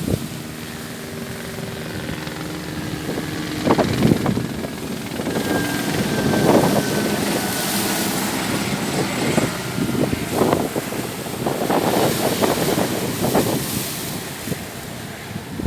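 Waves washing on the shore in surges, with wind on the microphone, and the steady drone of a passing engine whose pitch falls slightly.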